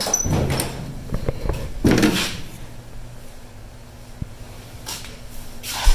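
Handling noise from a hand-held camera being carried around the truck, with footsteps and a few soft bumps, the loudest just before the end.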